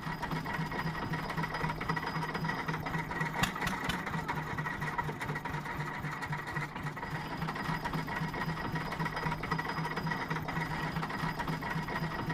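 Small narrow-gauge industrial diesel locomotive of the type used in brick works, its engine running steadily with an even, rhythmic beat.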